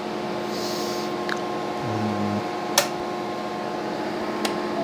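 Steady whir of a battery charger's cooling fan, with a few steady tones in it. A few sharp clicks fall over it, the loudest about three seconds in.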